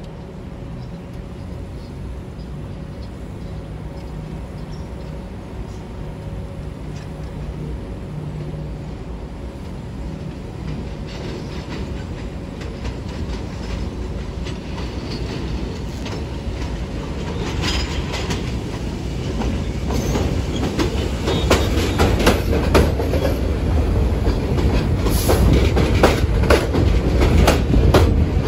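R46 subway train approaching and pulling into the station, its wheels clattering over the switches and rail joints. The rumble grows steadily louder as it arrives, and the clatter turns dense and loud over the last ten seconds or so as the cars pass close by.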